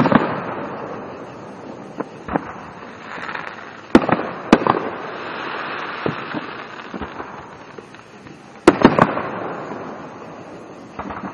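Aerial fireworks shells bursting: a string of sharp booms, the loudest about four seconds in and near nine seconds, each trailing off in a rolling echo.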